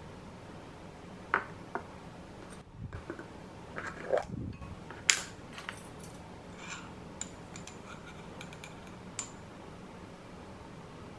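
Metal measuring spoon clinking and tapping against glassware: a few sharp clinks, the loudest about five seconds in, with some handling of a glass jar between them.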